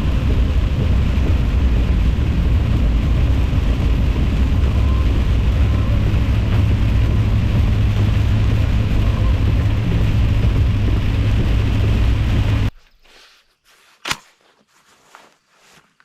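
Steady low road-and-engine rumble inside a moving vehicle's cabin. It stops abruptly near the end, leaving quiet with one sharp click and a few faint small sounds.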